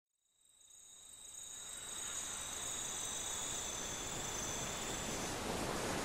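Steady chirping of insects, like crickets at night, over a hiss that fades in over the first two seconds as the ambient opening of a recorded song.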